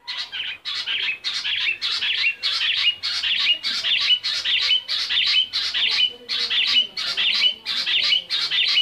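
Rock bush quail calling: a fast, unbroken series of short, high, sharp notes, about two a second, each ending in a brief whistle.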